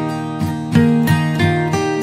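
Background instrumental music of plucked, guitar-like notes, a new note every fraction of a second.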